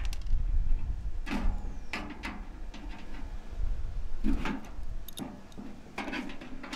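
Scattered knocks and scrapes of sheet metal as a stripped microwave oven's steel casing is gripped and worked on, about six separate short sounds over a low rumble.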